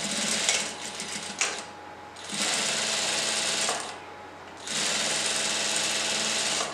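Industrial single-needle sewing machine stitching a holding seam through dark blouse fabric, running steadily in three bursts with short pauses about two and four seconds in.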